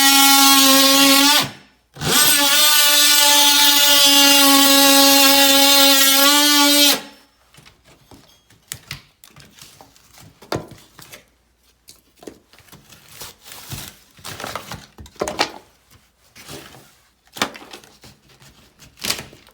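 Handheld electric power tool running at a steady high-pitched whine for about a second and a half, stopping briefly, then running again for about five seconds before stopping. After that come quiet, scattered clicks and rustles of handwork.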